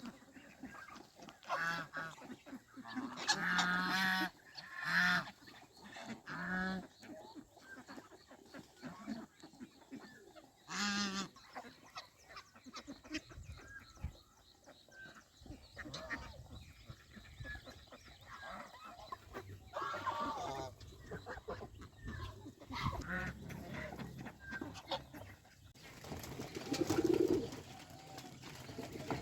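Domestic geese honking in short calls, several close together a few seconds in and another about eleven seconds in, with softer fowl calls scattered between.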